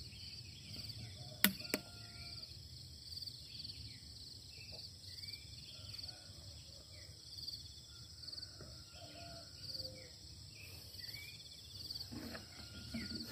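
Insects chirring steadily in a high, evenly pulsing drone, with scattered faint bird chirps. There is a single sharp click about one and a half seconds in.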